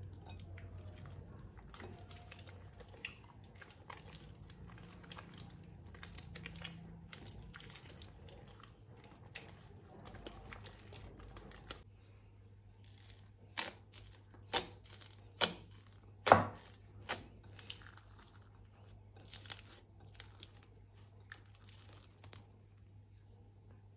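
Balloons and plastic piping bags being handled for slime-making, crinkling and tearing. Just past halfway come four sharp snaps about a second apart, the fourth the loudest, then fainter crinkling.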